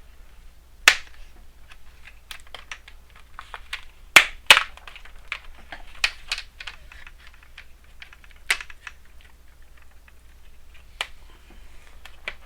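Plastic retaining clips of a Dell Inspiron 14z's screen bezel snapping loose one by one as the bezel is pried off by fingernail: a few sharp clicks, two close together about four seconds in, with many small plastic ticks between.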